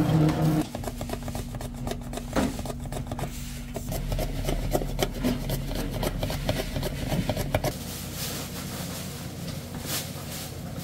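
A machine hum cuts off just under a second in. Rapid clicking strokes follow as cucumbers are sliced into rounds on a vegetable slicer. Near the end comes the scraping of a long knife sawing through a burger bun.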